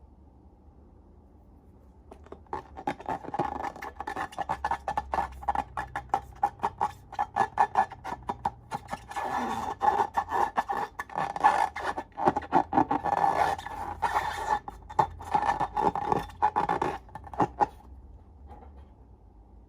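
Slime being squeezed and worked, a dense run of quick sticky crackles and clicks that starts about two seconds in, grows louder midway and stops shortly before the end.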